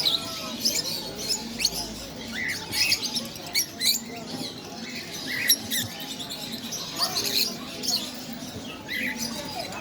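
Parrots chattering: a steady run of many short, high squeaks and chirps, with a few lower squawks now and then.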